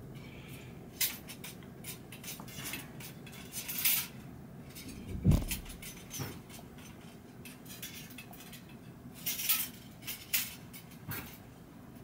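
Metal bicycle spokes clicking and clinking as they are handled and dropped through the hub flange holes while lacing a front wheel, with a single dull thump about five seconds in.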